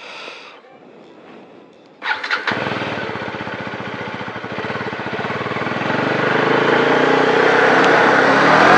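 Motorcycle engine starting about two seconds in, then running and revving higher, growing steadily louder as it is wound up for a burnout.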